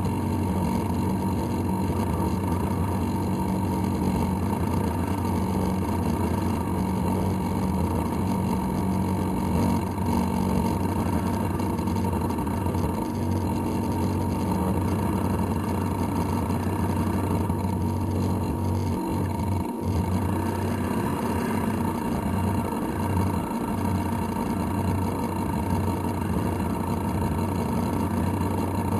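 Radio-controlled model boat's engine running steadily at constant speed: a continuous drone with a steady whine on top.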